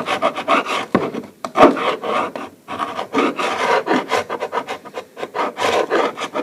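Hand paint scraper rasping against oak floorboards in quick, uneven back-and-forth strokes, scraping paint off the wood, with a short pause about two and a half seconds in.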